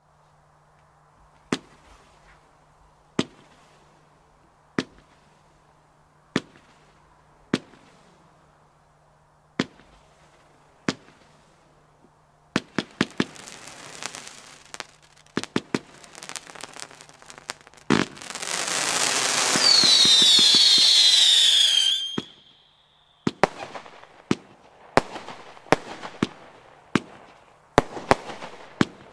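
Lesli 'Böser Hund' consumer firework battery (cake) firing: single shots about every second and a half at first, then quicker clusters of shots. About two-thirds of the way in comes a loud unbroken rush of about four seconds with falling whistles in it, followed by rapid shots again.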